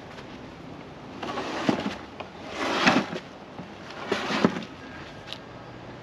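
A heavy pool sand filter tank with attached PVC plumbing being shifted by hand: three rough bursts of scraping and handling noise, each with a sharp knock.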